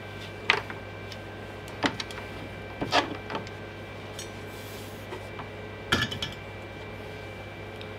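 A handful of short, sharp clicks and clinks as a desoldering gun is handled and set down into its metal holder stand, over a steady low hum.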